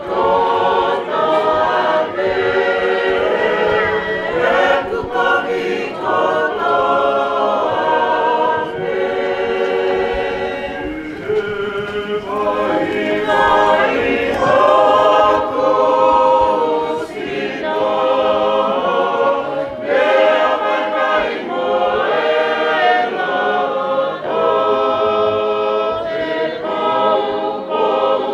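A gathering of guests singing a hymn together as a choir, many voices holding long notes in harmony.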